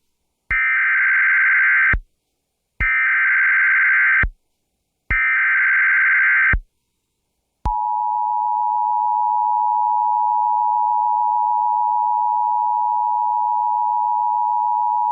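Emergency Alert System alert opening: three bursts of SAME header data tones, each about a second and a half long with short gaps between them. About a second after the last burst, the steady two-tone EAS attention signal starts and holds.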